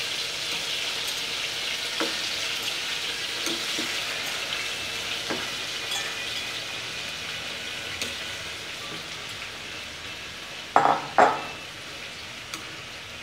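Marinated pork ribs sizzling in oil in a non-stick frying pan over low heat, a steady hiss that slowly fades, with light clicks of chopsticks turning the pieces and two louder knocks near the end.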